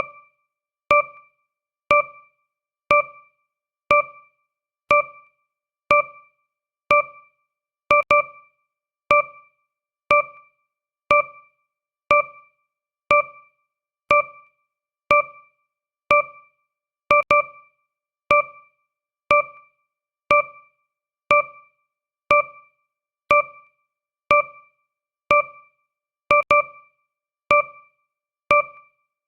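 Countdown timer's per-second tick: a short electronic chime-like note once every second, each dying away quickly to silence. A few of the strokes come doubled.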